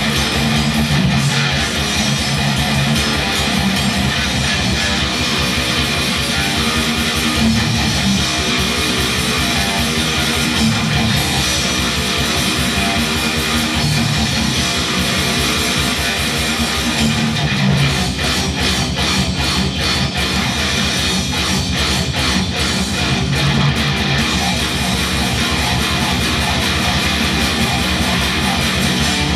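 Heavily distorted electric guitar playing a fast, unbroken death metal riff.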